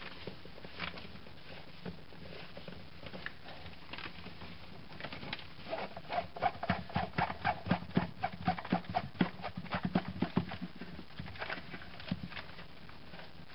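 Quick run of hard plastic clicks and knocks, about three or four a second for some five seconds in the middle, as a plastic hose adapter is worked down into the filling port of a plastic bin liner. A few scattered lighter clicks come before it.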